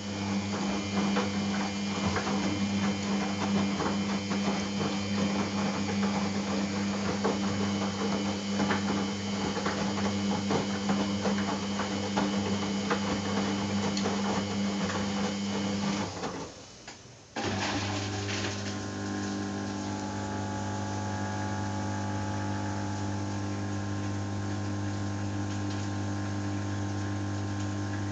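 Samsung WF70F5E0N4W front-loading washing machine at the end of its main wash: the motor hums steadily while the drum tumbles the laundry with many small irregular knocks. About 16 seconds in it stops briefly, then a steadier hum without the knocking starts up.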